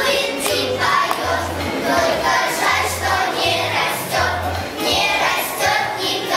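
Children singing a children's song together over musical accompaniment, with the bass part sounding in short, regular notes beneath the voices.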